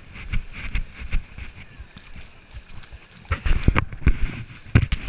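Footsteps wading through knee-deep muddy water: irregular sloshing and splashing, with heavier splashes about three to four and a half seconds in. Voices can be heard faintly in the background.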